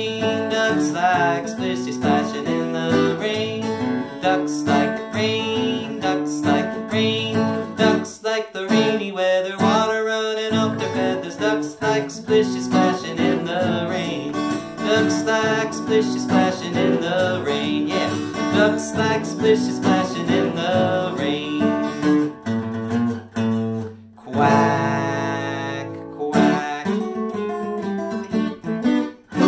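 Acoustic guitar, capoed up the neck, strummed in steady chords while a man sings along.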